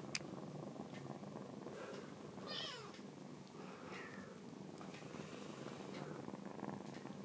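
Kitten purring steadily, with two short high mews that fall in pitch, about two and a half and four seconds in. A faint click comes right at the start.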